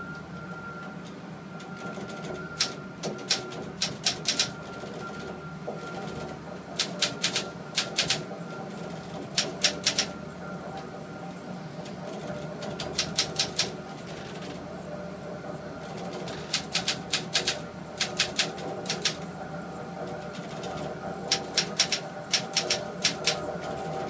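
Typewriter organ: typewriter keys struck in quick groups of sharp clicks every few seconds, over a steady drone of several held tones.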